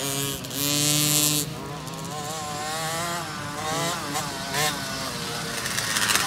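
Small youth dirt bike engines revving as the bikes ride by, their pitch rising and falling with throttle and gear changes, with more than one engine heard at once.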